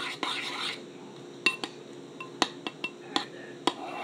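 A spoon stirring glue and shaving cream in a bowl: a short stretch of scraping, then about seven sharp clinks of the utensil against the bowl, each with a brief ring.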